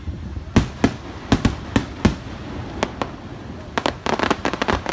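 Aerial firework shells bursting overhead. Separate sharp bangs start about half a second in, then a quick run of many bangs comes near the end.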